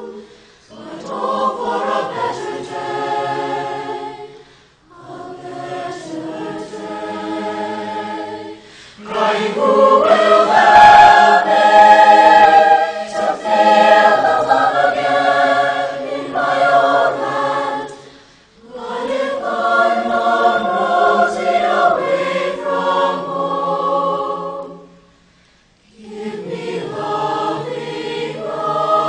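Background music: a choir singing slow phrases of held notes, each a few seconds long, with short pauses between them. The phrases grow loudest about a third of the way in.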